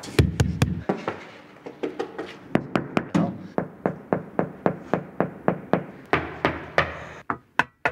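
A quick run of sharp clicking taps, about three a second, keeping up through most of the stretch, after a brief low vocal sound at the start.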